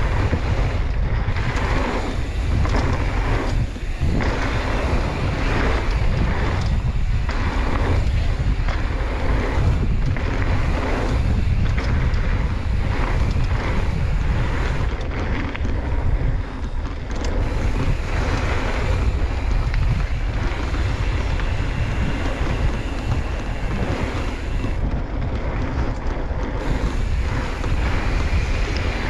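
Wind rumbling over the microphone of a mountain bike riding a flow trail, with the hiss of tyres over dirt and gravel that swells and fades as the trail turns.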